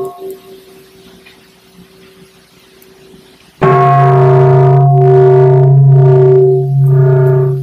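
A struck meditation bell rings on a few clear tones and fades in the first half-second. About three and a half seconds in, a loud low sustained drone starts, with overtones that swell and fall about once a second.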